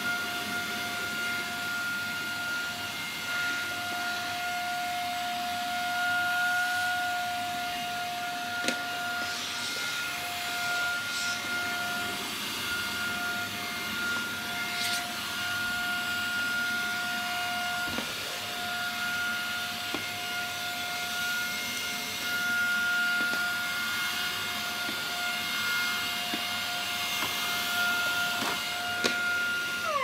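Vacuum cleaner running steadily through its hose nozzle: a constant motor whine over rushing air, with a couple of faint knocks.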